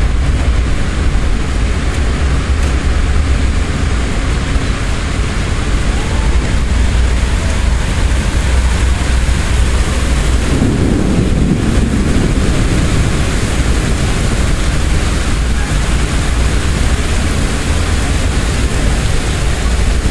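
Severe thunderstorm wind and rain: a loud, steady rushing noise with a heavy low rumble underneath, which swells deeper for a couple of seconds about halfway through.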